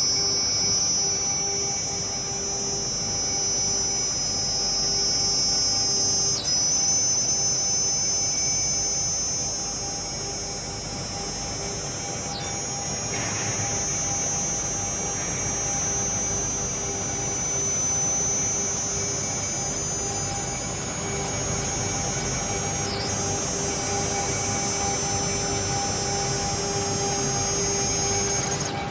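CNC machine running and machining FR4/G10 glass-epoxy laminate: a steady high-pitched spindle whine over a hum and a noisy cutting haze, dipping briefly three times.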